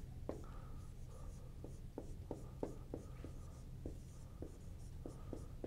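Dry-erase marker writing on a whiteboard: a quick string of short taps and strokes as capital letters are drawn, several of them with a thin squeak.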